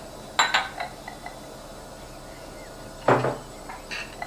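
Kitchen clatter: crockery, cutlery and cupboard doors knocking and clanking in a few sharp bursts, the loudest about three seconds in.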